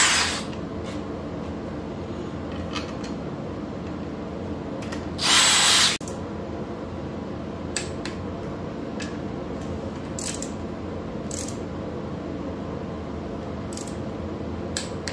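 Cordless drill running the cam tower bolts down on a VQ37VHR cylinder head in two short bursts, one right at the start and one of about a second around five seconds in. After that come a handful of sharp single clicks while a hand wrench works the bolts, over a steady background hum.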